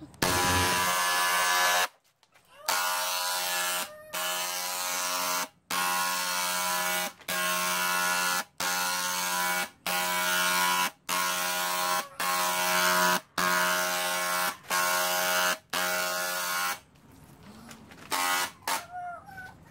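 Electric handheld paint spray gun buzzing as it sprays, its pump starting and stopping in about a dozen bursts of a second or so with short breaks between. It stops about three seconds before the end.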